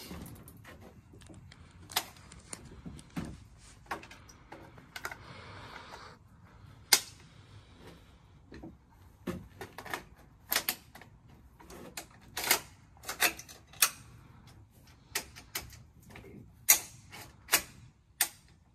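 Irregular clicks and knocks of equipment being handled and set up, with a brief rustle about five seconds in.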